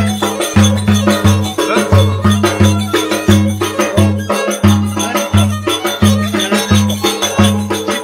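Turkish dance music: a violin plays a wavering melody over a fast, bass-heavy beat of about three pulses a second, with jingling percussion. The beat breaks off briefly about halfway through.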